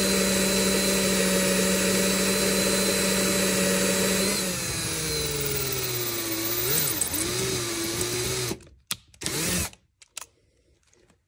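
Handheld power drill turning a number 31 carbide drill bit, cutting a cross-pin hole through a nitrided gas block and AR barrel. The motor whines steadily for about four seconds, then its pitch drops and wavers as the speed falls, and it stops about eight and a half seconds in, followed by a couple of brief spins.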